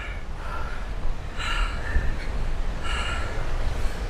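Heavy breathing of a hiker climbing a steep trail: short hard breaths about every second and a half, over a steady low rumble.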